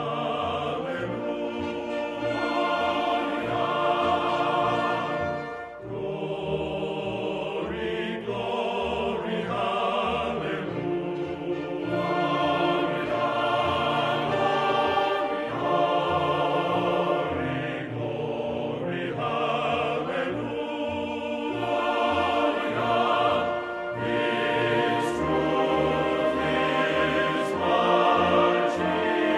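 Choral music: a choir singing slow, held notes in phrases of a few seconds.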